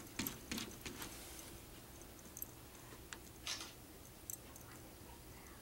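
Opossum crunching dry pet food from a bowl: faint, irregular crisp clicks, several in quick succession in the first second, then scattered ones with a slightly longer crunch about halfway through.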